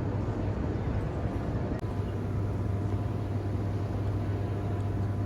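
Steady low machinery hum inside Hoover Dam's hydroelectric powerplant, with a faint steady high tone joining about two seconds in.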